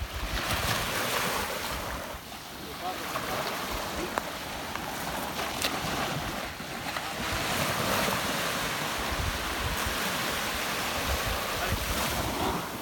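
Sea waves breaking and washing up the beach, the surge swelling and easing over several seconds, with wind buffeting the microphone.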